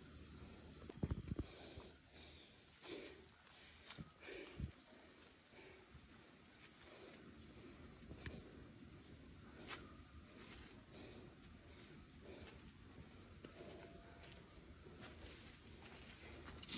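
Steady, high-pitched chorus of forest insects. It is louder for the first second, then drops to a lower level. Faint footsteps and brushing ticks come from the undergrowth.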